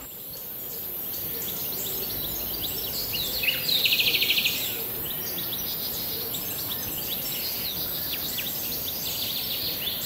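Forest songbirds chirping, with one fast trill about four seconds in as the loudest call, over a steady high-pitched hiss.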